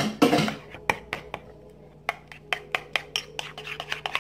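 Metal spoon clinking and scraping against a ceramic bowl as a thick mixture is stirred, sharp irregular clicks several times a second. A brief loud rustle and knock in the first half second.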